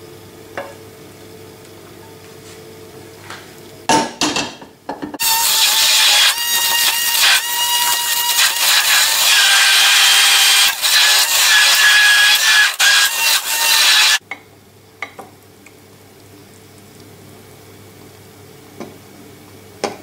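Immersion stick blender running for about nine seconds, puréeing cooked fennel in cream in a glass bowl, then cutting off suddenly. A few knocks come just before it starts.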